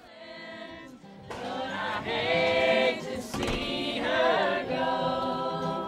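A group of young and adult voices singing a song together to a strummed acoustic guitar. The singing is quieter for about the first second, then comes in fuller.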